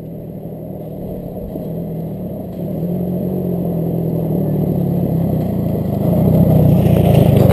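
A quad (ATV) engine approaching and growing steadily louder until it pulls up close, over the steady idle of a nearby dirt bike engine.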